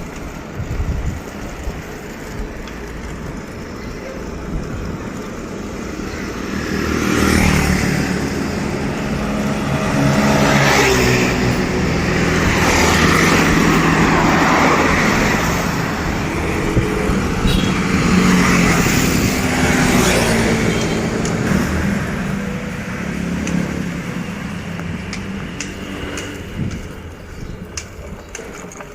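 Motor vehicles passing close on the road, engine noise building from about six seconds in, strongest through the middle and fading away near the end.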